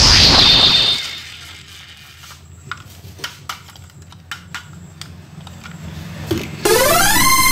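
Sharp plastic clicks and knocks of a battery-powered toy train being handled and turned over, set between a loud falling whoosh at the start and a loud electronic tone that rises in pitch and then holds steady near the end.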